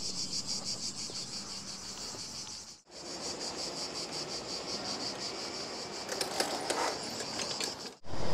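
Insects trilling in a high, fast-pulsing buzz, cut off briefly about three seconds in. Near the end a few light clicks and rattles sound under it.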